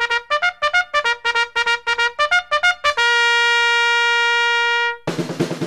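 Intro music: a run of quick, detached notes, then one long held note about three seconds in, then a fuller section with drums starting near the end.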